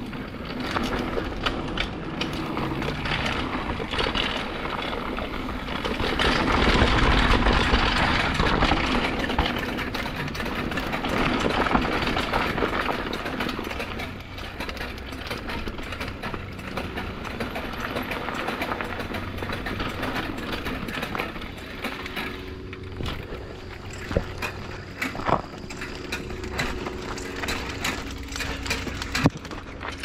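Downhill mountain bike running down a dirt trail: steady rushing noise of tyres and wind, loudest for a few seconds early on, with sharp rattles and knocks of the bike over rough ground, several near the end.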